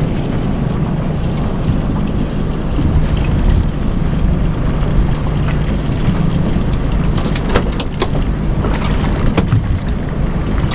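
Boat engine running steadily with a low hum, with wind on the microphone. A few sharp clicks come between about seven and nine and a half seconds in.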